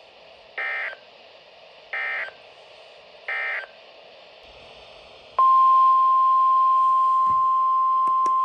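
Emergency Alert System SAME header on NOAA Weather Radio: three short, identical data bursts about 1.4 s apart over faint radio hiss. About two seconds later the steady single-pitch 1050 Hz weather radio warning alarm tone starts and holds, marking the start of a new alert.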